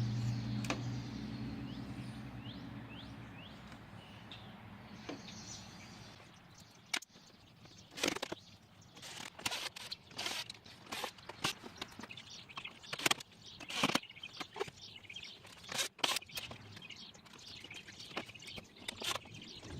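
Small birds chirping, then from about seven seconds in a long run of irregular sharp clicks and knocks: plastic light lenses, screws and hand tools being handled and fitted. A low hum fades out over the first few seconds.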